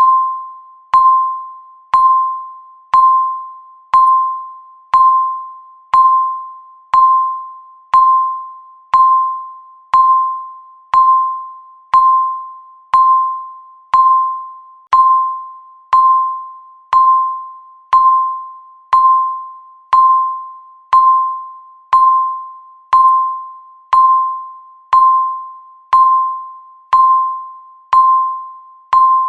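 Countdown timer beep: one clear electronic tone sounding once every second, each beep starting sharply and fading out before the next, marking each second left on the count.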